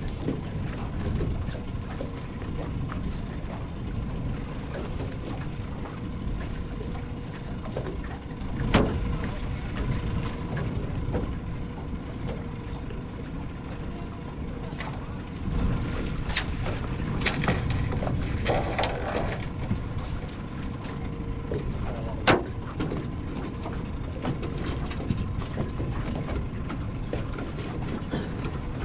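Fishing boat's motor running steadily on the water, with wind and water rumble, a faint steady whine, and a few sharp knocks on the hull or gear, the loudest about nine and twenty-two seconds in.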